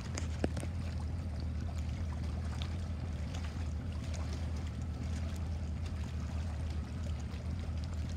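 Light water lapping and splashing over a steady low rumble, with scattered small clicks and one sharper click about half a second in.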